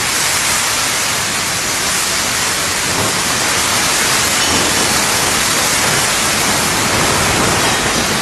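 Heavy wind-driven storm rain pouring down, a loud steady rushing noise with no letup, on and around a corrugated metal roof.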